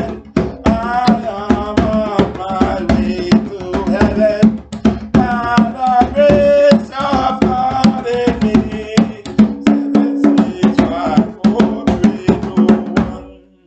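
A man singing a gospel song over fast, steady drum beats. The music stops suddenly near the end.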